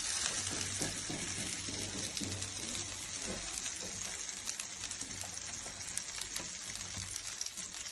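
Ragi roti dough sizzling on a hot dosa tawa as it is patted thin with wet fingers: a steady hiss with soft, irregular pats.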